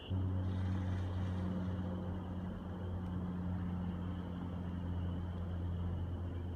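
A steady low engine drone that starts abruptly and holds an even pitch throughout, with a faint high steady tone above it.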